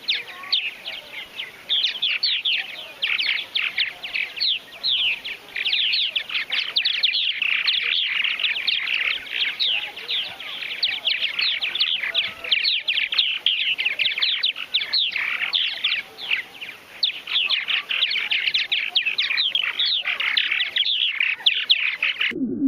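Purple martin colony: many birds calling at once in a dense, continuous chatter of quick, mostly falling chirps.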